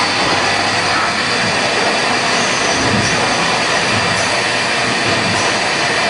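Hanwha XD26II-V Swiss-type CNC automatic lathe running through a machining cycle: a loud, steady mechanical rush of spindle and cutting noise with faint steady tones in it.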